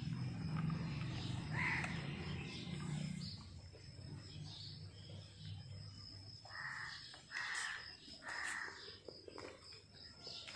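Outdoor ambience with a low hum for the first few seconds, then three harsh calls about a second apart, like a bird cawing.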